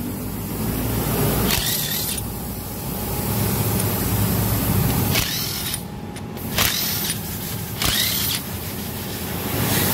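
Handheld electric driver with a socket spinning bolts out of a scooter's rear gear-case cover, in about four short bursts, each rising and falling in pitch.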